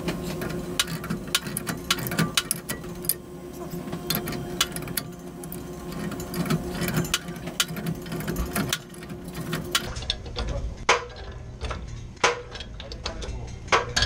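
Pipe wrench working the cap of a Y-strainer on copper water pipe loose: quick, irregular metal clicks and scrapes. A steady hum runs underneath and stops about ten seconds in.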